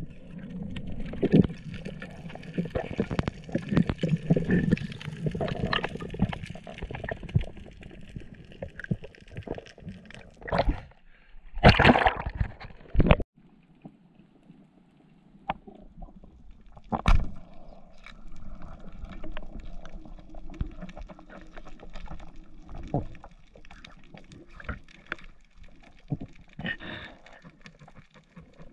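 Underwater sound through a GoPro's waterproof housing: muffled gurgling water movement with many scattered clicks and knocks. A louder burst of noise comes about twelve seconds in, then the sound drops off suddenly, and a single sharp knock follows a few seconds later.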